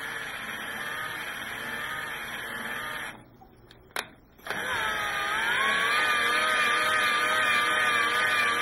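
Cordless drill spinning a mill drill's Y-axis handwheel shaft through a hex driver bit, power-feeding the table: a steady motor whine that stops about three seconds in, a single click, then starts again a second or so later, louder and with its pitch wavering.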